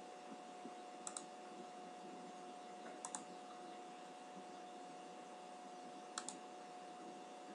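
Computer mouse clicking as sketch line points are placed: three quick pairs of clicks, about a second, three seconds and six seconds in, over a faint steady hum and hiss.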